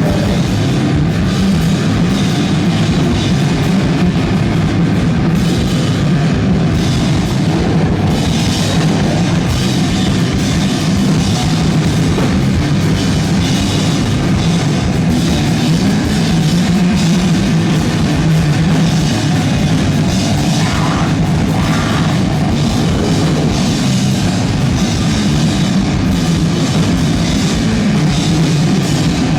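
Live noisecore band playing at full volume: a continuous, unbroken wall of distorted noise over drums and crashing cymbals.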